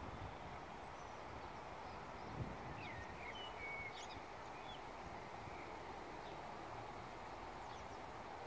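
Wild birds chirping and whistling outdoors, with a flurry of short calls in the middle, over a steady rush of wind.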